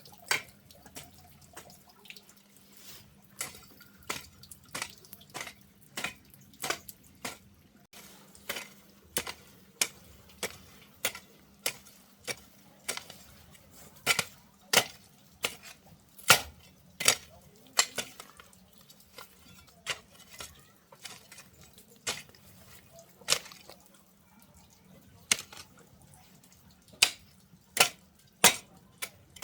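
A run of sharp, irregular taps or clicks, about one or two a second.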